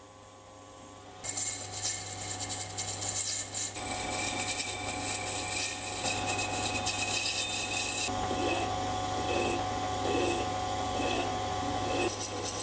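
Small metal lathe machining a brass insert, its motor humming steadily under the hiss and chatter of the cut as the part is drilled and then turned. In the last few seconds a hand file is stroked against the spinning brass, about one rasping stroke a second.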